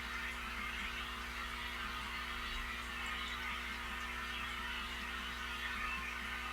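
Steady hum of running aquarium equipment, with an even hiss and faint small ticks over it.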